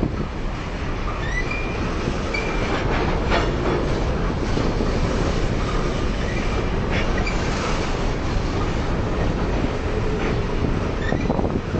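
Freight train cars rolling past, a steady rumble of wheels on rail with a few knocks over rail joints and several short, high wheel squeals.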